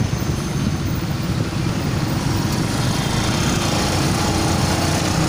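Small motorcycle engine running steadily while riding, with a steady rush of road and wind noise.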